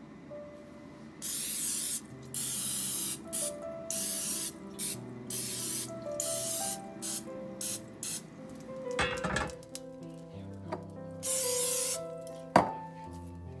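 Aerosol olive oil cooking spray hissing in a string of short bursts as the dough is coated, some longer, some quick spurts, with one last burst near the end. Two knocks come in the second half, the sharper one near the end.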